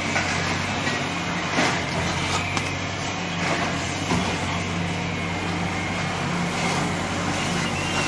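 Wheeled excavator's diesel engine running steadily while working its boom over a loaded truck, with a few short knocks of the load or attachment, the clearest about a second and a half in.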